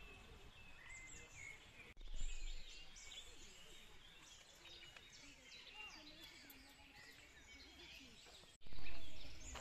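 Woodland birds singing and chirping, many short calls overlapping. A brief low rumble comes about two seconds in, and a louder one near the end.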